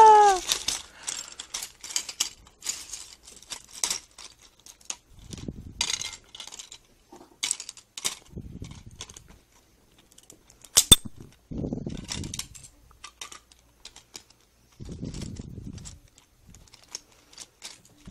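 Plastic LEGO bricks clattering and rattling in many scattered small clicks as a LEGO build is shaken, with patches of low rumble. A single sharp click about eleven seconds in is the loudest.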